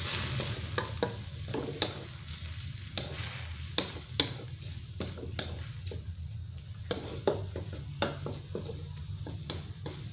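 A spatula stirring in a hot frying pan, clicking and scraping against the metal in an irregular rhythm, over a light sizzle after a splash of water has gone into the pan.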